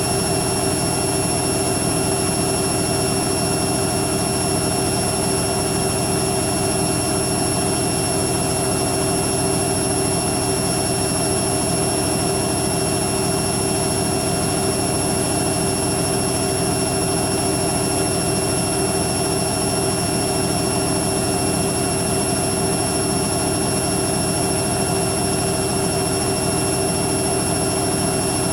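Hoover Quattro System washing machine in its final spin, the drum turning at a steady high speed (the programme's top is 1300 rpm). The motor gives a steady whine with several high tones over a constant rumble and rush.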